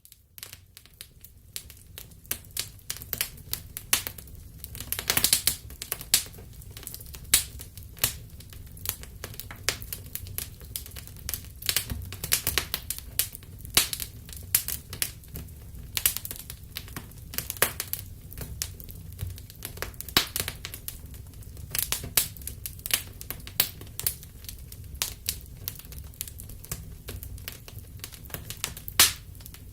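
Wood fire burning in a fireplace: irregular sharp crackles and pops over a low steady rumble.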